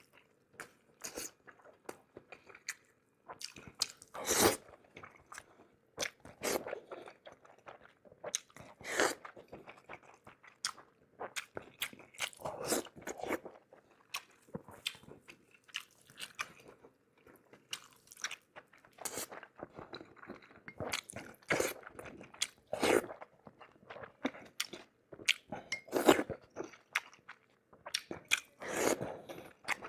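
A person eating close to the microphone: irregular crunching bites and wet chewing, with the loudest crunches about four, nine and twenty-six seconds in.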